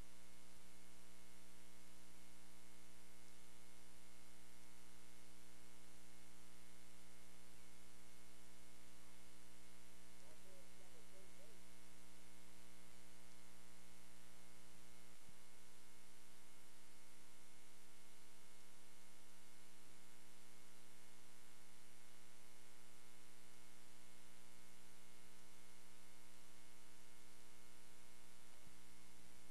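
Steady electrical mains hum, a buzz of many evenly spaced tones at an unchanging level. The deepest part of the hum drops away about halfway through and returns near the end.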